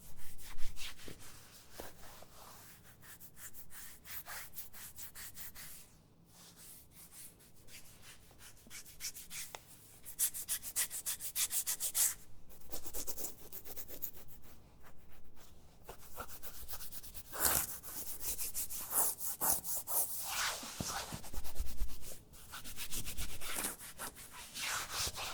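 A man scratching an itch, fingernails raking rapidly back and forth over skin in uneven bursts with short pauses between them.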